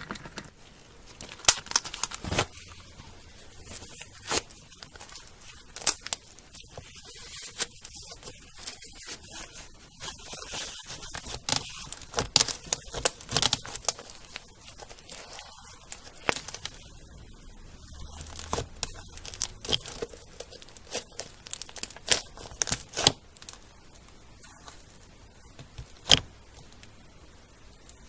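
Slime being squeezed, stretched and poked, with a dense, irregular run of crackles and sharp pops, some much louder than others.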